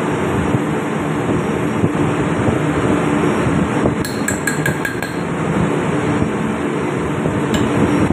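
Loud, steady drone of ship's engine-room machinery. A quick run of five or six metallic clinks comes about four seconds in, and one more near the end, from hand tools on the steel body of a fuel injection pump held in a vise.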